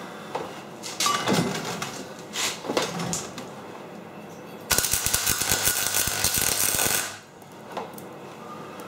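A gas-shielded MIG welder's arc crackles steadily for about two seconds as it lays a small weld joining a steel tube to a steel plate, then stops abruptly. Before it come a few shorter, quieter noises.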